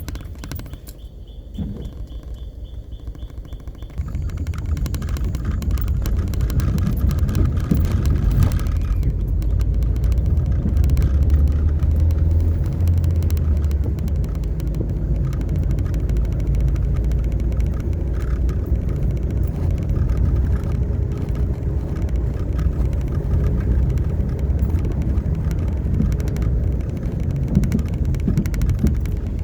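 Car engine and road noise heard from inside the moving car: a steady low rumble that grows louder about four seconds in as the car picks up speed.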